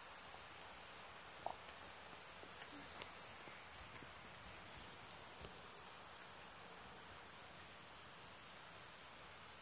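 Steady high-pitched drone of an insect chorus, with a few faint ticks and one brief sharper sound about one and a half seconds in.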